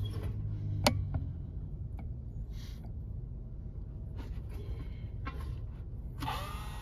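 Steady low hum with a sharp click about a second in. Near the end, the motor of a Kotoku Red Duo Head flat-plate sharpening machine is switched on and its whine rises as the disc spins up.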